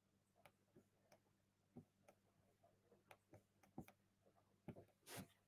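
Near silence: room tone with a faint low hum and a dozen or so faint, irregular clicks.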